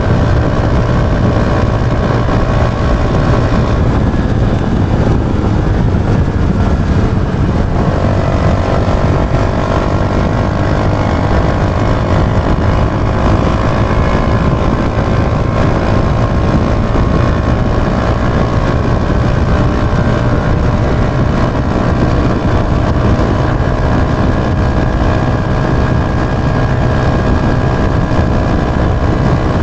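Yamaha YB125Z DX's 125 cc single-cylinder four-stroke engine running on the move. About four seconds in, the engine note fades; it returns at a lower pitch about eight seconds in and then slowly rises as the bike picks up speed.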